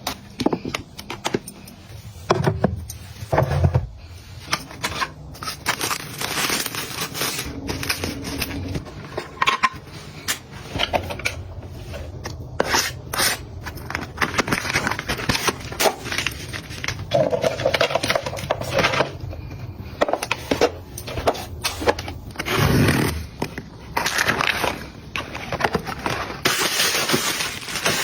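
Household items being handled and put away: a steady run of clicks, knocks and scrapes, with rustling and crinkling of packaging in between.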